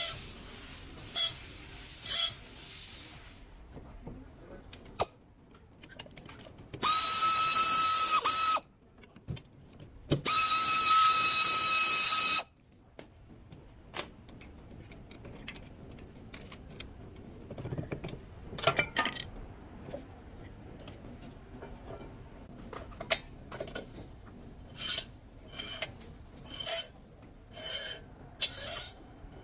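A power tool, probably an air impact wrench or air ratchet, runs twice in steady high whining spurts of about a second and a half and two seconds, each starting and stopping abruptly. Between the spurts come scattered metallic clicks and knocks of tools being handled.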